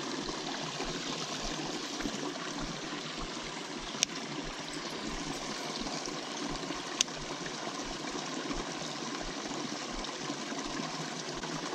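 Small brook running into a rocky pool: a steady rush and trickle of flowing water, with two sharp clicks about four and seven seconds in.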